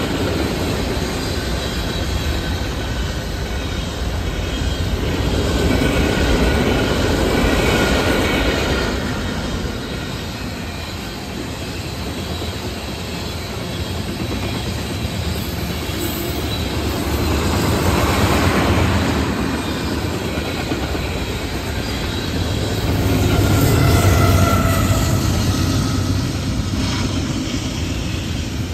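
An Amtrak train's cars rolling past on the rails: a continuous rumble with wheel clatter that swells and eases several times, and light wheel squeal now and then.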